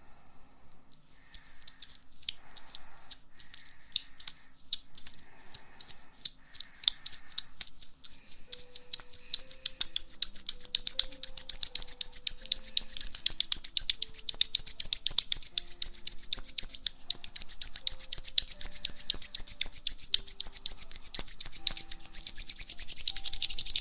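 Aloe vera gel being worked over an ear in an ASMR ear massage. It begins with slow, soft strokes about every second and a half, then from about a third of the way in turns into a dense, sticky crackle. Soft background music, a slow melody of single notes, comes in under it at the same point.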